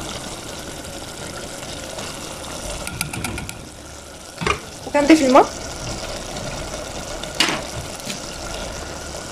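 Chicken and spices sizzling steadily in an aluminium pot as chopped onion is tipped in. A short knock comes about halfway, and then water is poured into the pot.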